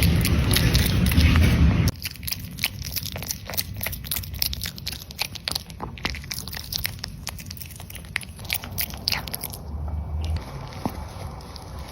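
A dog crunching and chewing dry food: many sharp, irregular crunches. A loud rushing noise fills the first two seconds and cuts off abruptly before the chewing.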